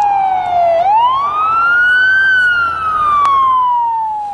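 Emergency vehicle siren wailing: its pitch slides slowly down, swings back up about a second in, then slides down again, fading away near the end.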